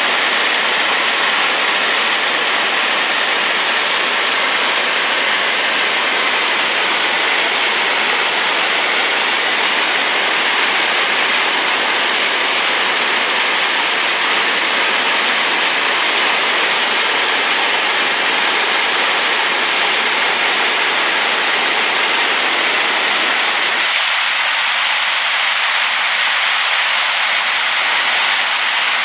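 Waterfall swollen by rain, a loud, steady rush of falling water; the deepest part of the rumble drops away suddenly about 24 seconds in.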